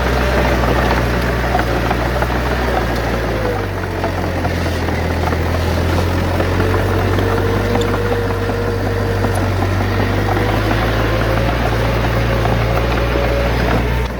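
Heavy diesel engine of a bulldozer running steadily, with a constant whine above the engine note. The engine note shifts slightly about three and a half seconds in.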